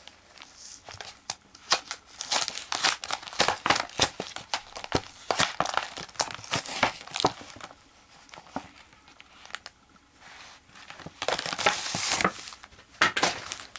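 Plastic trading-card packaging crinkling and tearing as it is handled and opened by hand, in irregular crackly bursts, loudest near the end.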